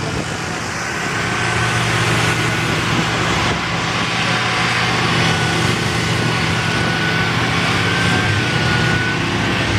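Off-road 4x4's engine running steadily, a low drone with a thin high whine above it.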